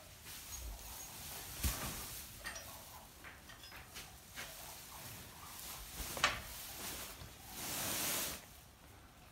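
Straw bedding rustling and crackling as a dog and calves shift and nuzzle in it, with two sharp clicks and a longer burst of rustling near the end.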